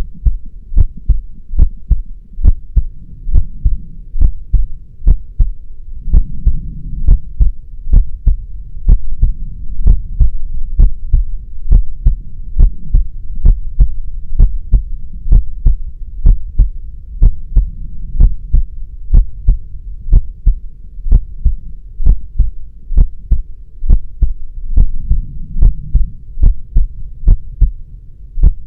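Heartbeat, steady and regular: a low lub-dub thump repeating evenly, over a low rumble between beats.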